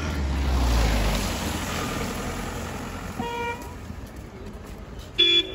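A car driving past with a low rumble and tyre noise, loudest about a second in and fading away. Then two short car-horn toots: a faint one about three seconds in and a loud, higher one near the end.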